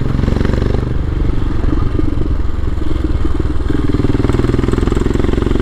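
Royal Enfield Himalayan's single-cylinder thumper engine running on the move, its exhaust thumping steadily. The engine note settles to a steadier pitch about two thirds of the way in.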